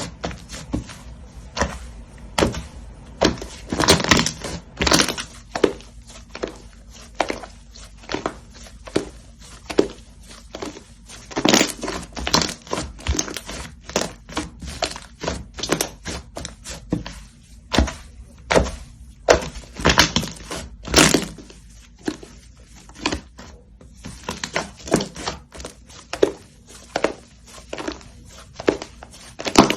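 Slime being squeezed, poked and stretched by hand, giving a fast, irregular run of sticky clicks and pops with a few louder crackling clusters.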